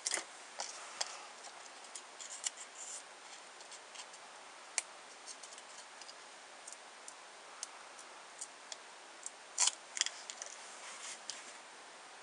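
Paper and foam tape handled by hand: scattered light clicks and crinkles as a small cardstock flag is folded over and foam tape is pressed onto its back, with the sharpest cluster of snaps about nine and a half seconds in.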